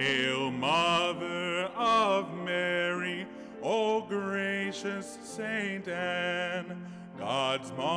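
A hymn sung by a solo voice with vibrato over sustained organ or piano chords; the voice enters right at the start.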